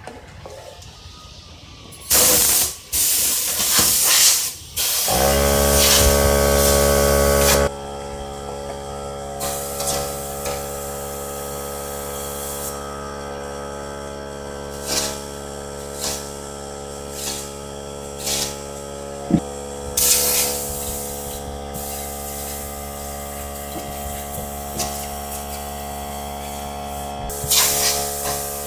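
Compressed air blasting in bursts from an air hose nozzle, then a Central Pneumatic 100 psi portable air compressor's motor and pump kick on about five seconds in and keep running with a steady hum, refilling the tank as air is drawn off. Further short blasts of air and a few knocks come over the running compressor.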